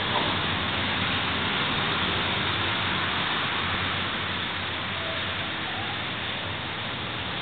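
Steady, even hiss of background noise with no distinct event in it.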